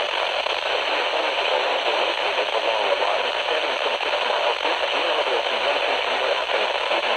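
Steady radio static: an even hiss from a radio receiver between alert broadcasts.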